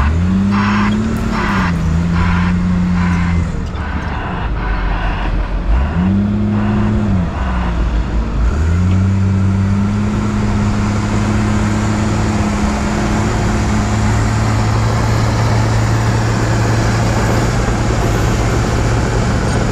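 Heavy diesel earthmoving machinery at work: a big diesel engine revs up in pitch at the start, again around six seconds and again around eight and a half seconds, then holds a steady note. For the first several seconds a regular pulsing sound repeats about twice a second over the engine.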